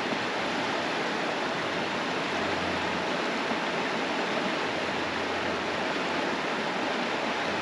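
Shallow mountain river running over rocks and boulders: a steady, even rush of flowing water.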